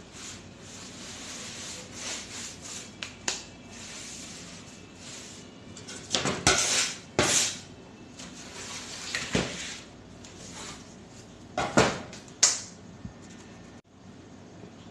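Hands rubbing and rolling dough pieces in breadcrumbs on a stainless steel table, a soft gritty scraping, then loud metallic clanks and scrapes of an aluminium sheet pan knocking and sliding on the steel table, in two clusters about halfway through and near the end.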